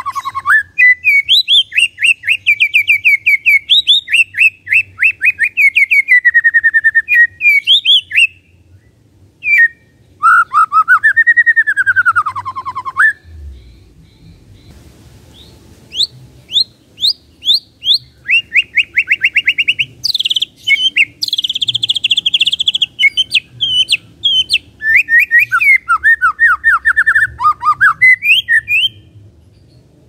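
White-rumped shama singing its rattling 'kretekan' song: fast trills of sharp repeated notes, some sweeping up and then down in pitch, with a pause of a few seconds about halfway through before the trills start again.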